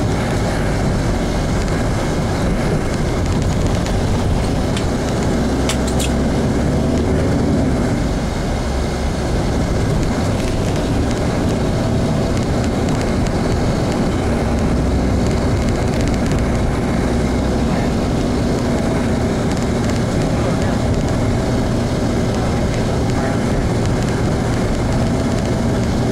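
Steady engine and road rumble heard from inside a moving vehicle in dense city traffic, with buses and cars passing close alongside.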